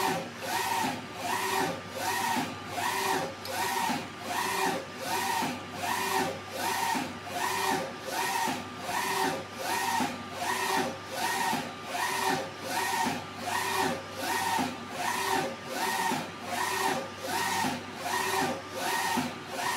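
Flatbed UV printer's print-head carriage shuttling back and forth across the gantry as it prints. Its motor-and-carriage sound swells and fades in an even rhythm with each pass, over a steady low hum.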